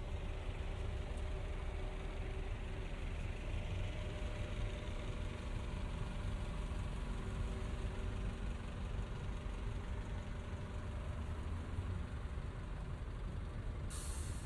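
Steady low hum of city street traffic with engines idling, and a short hiss near the end.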